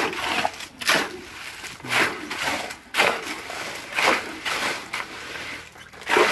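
Shovels scraping and turning wet concrete mixed by hand on the ground, a stroke about once a second.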